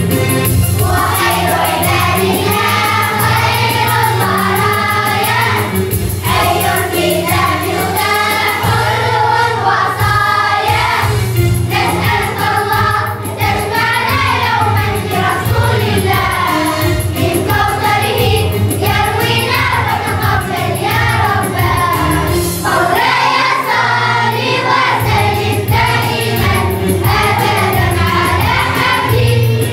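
Children's choir singing a song in Arabic in unison over an instrumental accompaniment with a steady low bass.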